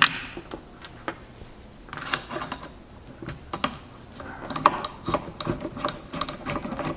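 Hand screwdriver driving a bolt into the plastic valve body of a water softener: a run of small irregular clicks and ticks as the driver is turned.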